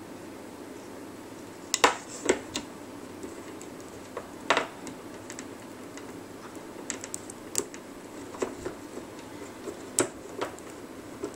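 Scattered sharp clicks and taps of fingers and nails on the plastic pegs of a rubber-band loom as the bands are pushed up. The loudest clicks come about two, four and a half, seven and a half and ten seconds in, over a low steady hum.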